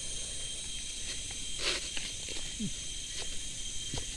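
Steady, high-pitched insect chorus, with a few scattered short rustles and clicks.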